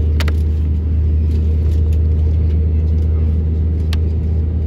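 Steady low hum and rumble inside the cabin of an Airbus A321neo, with a faint steady higher tone. Two short clicks, one just after the start and one near the end.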